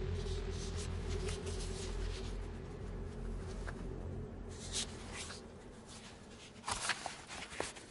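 Sheets of paper rustling as a document's pages are handled and turned: a few short rustles in the second half, over a low steady hum that fades away.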